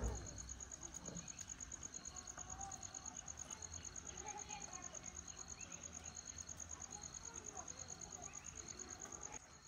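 Crickets chirping in a steady, fast-pulsing high trill, with a second, shorter chirp repeating under it about every 0.7 s, over a faint low rumble. A single sharp knock comes at the very start.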